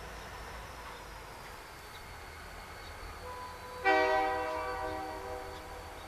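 Locomotive horn sounding one short blast about four seconds in, starting abruptly and fading away over about a second and a half.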